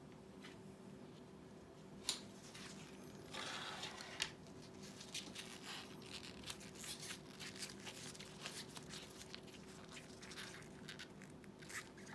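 Faint small handling noises from hand repair work on a headset: a sharp click about two seconds in, a short scrape or rustle about a second later, then a run of small clicks and scratches. A steady low hum runs underneath.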